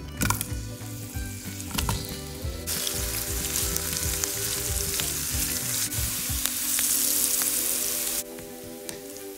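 Sliced onions sizzling in hot vegetable oil in a frying pan while a wooden spatula stirs them. The loud sizzle sets in about three seconds in and cuts off suddenly near the end.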